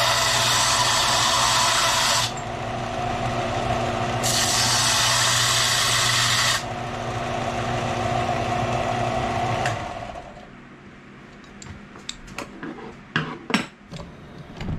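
Bench belt sander grinding down the protruding rivet ends on a knife handle, in two passes: a loud grinding for about the first two seconds and again from about four to six and a half seconds, with the motor running steadily between them. The motor stops about ten seconds in, and a few clicks and knocks follow.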